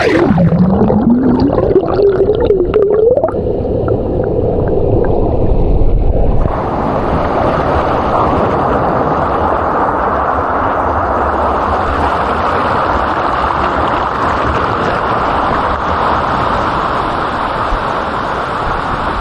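Rushing creek water heard underwater, muffled and gurgling, with a tone gliding upward over the first few seconds. About six seconds in the sound brightens into a steady rush of cascading water.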